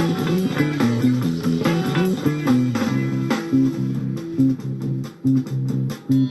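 Rock band instrumental jam: an electric bass plays a busy line of shifting low notes under guitar.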